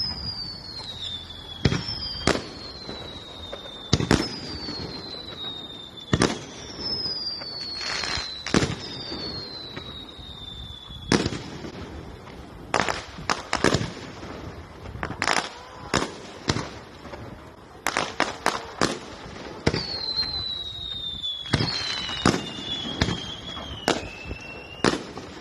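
Aerial fireworks bursting: a string of sharp bangs, some in quick clusters, with high whistles that fall in pitch over a couple of seconds after several of the bangs.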